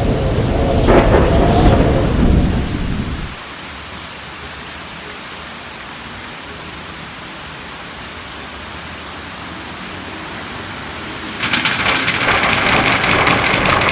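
Thunder rumbling over steady rain, dying away about three seconds in and leaving the even hiss of rainfall. About eleven seconds in, a louder, higher hiss of heavier rain starts abruptly.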